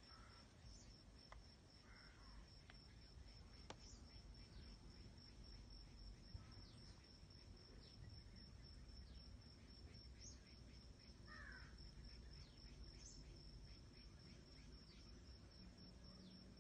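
Faint outdoor ambience: a steady high-pitched insect trill, with a few short faint bird chirps scattered through it.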